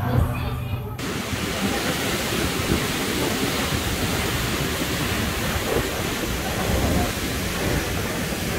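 Steady rushing of water from an artificial waterfall pouring down a themed rock face, cutting in abruptly about a second in.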